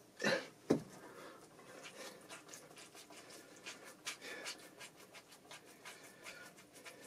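Hands rubbing and pressing a stick-on tattoo's paper backing onto the skin of the shin: faint, irregular scratching and rustling strokes as the adhesive film is pressed down. Two louder short sounds come in the first second.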